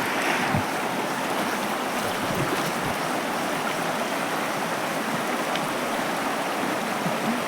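Steady rush of flowing river water, with a couple of faint low thuds.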